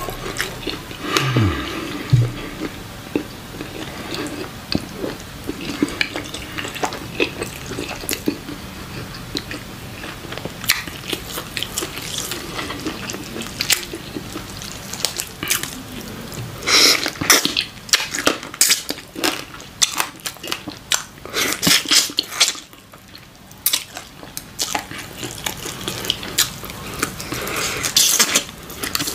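Wet, sticky smacking of bare hands tearing apart a chicken piece coated in slimy okra soup, with close-up crackling clicks of biting and chewing, loudest in clusters past the middle and near the end.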